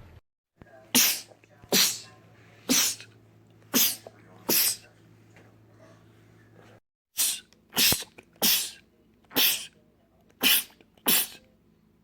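A man sneezing over and over, eleven short sharp sneezes about a second apart: a run of five, a brief silent break, then a run of six.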